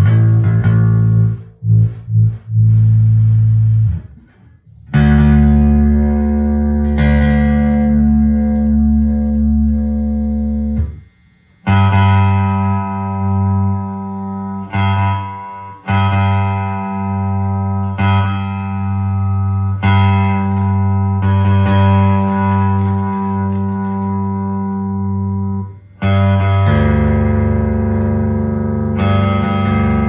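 Fender electric bass guitar being played solo: plucked notes and chords left to ring, with two short breaks in the first third, then a fresh attack about every two seconds.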